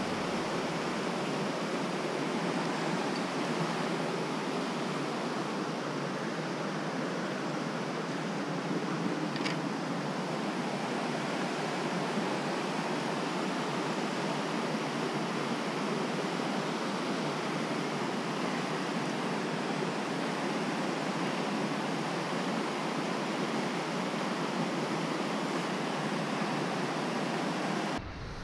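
Mountain trout stream rushing: a steady, even rush of flowing water that cuts off abruptly near the end.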